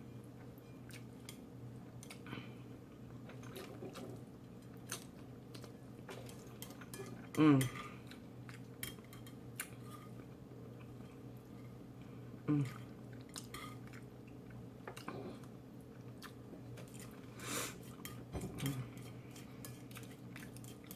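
A utensil clicking and scraping against a bowl while picking up the last little pieces of noodles, with quiet chewing in between and a couple of short hums.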